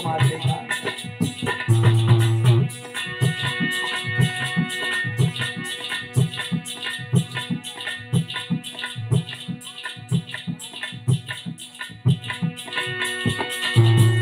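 Instrumental interlude of folk music with no singing: a harmonium holds steady chords over a hand drum beating a rhythm, with a quick, steady jingling rattle keeping time. The drumming is heavier about two seconds in and again near the end.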